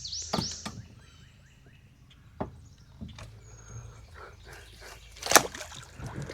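A bird singing a quick run of falling whistled notes that stops a little under a second in, followed by scattered sharp knocks and taps, the loudest about five seconds in.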